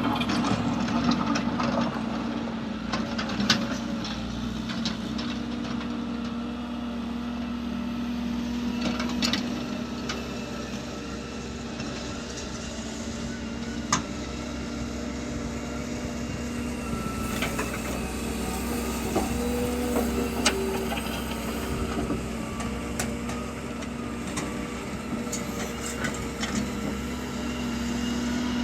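Vehicle engine running steadily at an even pitch, with a few sharp knocks.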